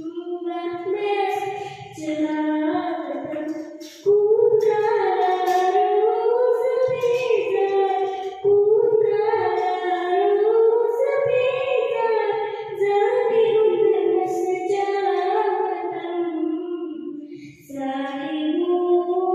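A girl's solo singing voice through a microphone, carrying a melody in long held phrases broken by short breaths, the longest pause near the end.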